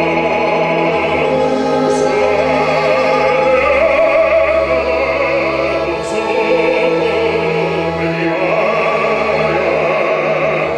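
Operatic baritone singing a Russian romance with a wide vibrato, accompanied by a symphony orchestra with sustained strings.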